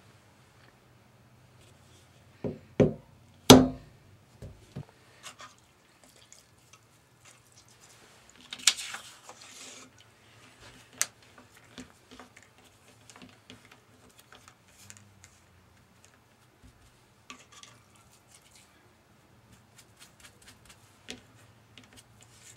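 Three sharp mallet knocks on a metal punch against a wooden stump, the last the loudest. Later, a brief scrape and scattered light taps and clicks as small leather pieces are handled on a cutting mat.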